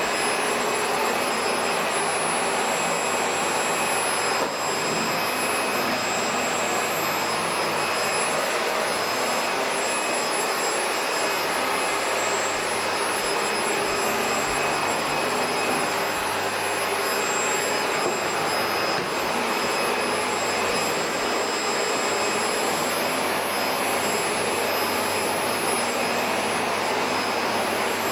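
Panasonic MC-PJ23A paper-bag canister vacuum cleaner running steadily: an even rushing of air with thin, high-pitched whines on top.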